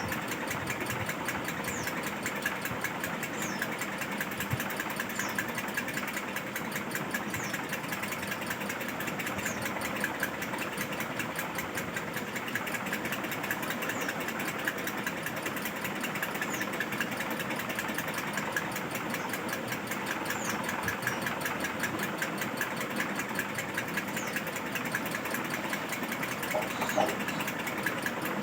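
A motor running steadily with a fast, even rattle.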